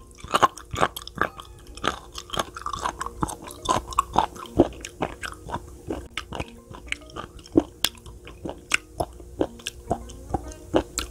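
Close-miked mouth sounds of someone chewing raw sea cucumber: a quick, irregular run of crunchy clicks and bites. Soft background music plays underneath.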